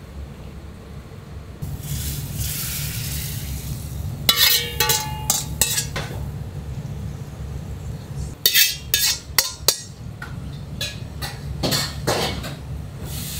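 Kitchen clatter: bowls and metal utensils clink and knock in several quick clusters, some hits ringing briefly, over a steady low hum of kitchen equipment. A hiss sounds about two seconds in.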